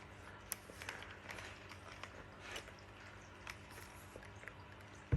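Faint, scattered plastic clicks and taps as a Dyson V15 cordless vacuum's accessory tool is fitted onto the wand and released with its catch button, with a sharper knock right at the end.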